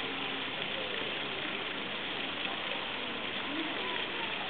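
Steady hiss of outdoor background noise, with faint distant voices murmuring.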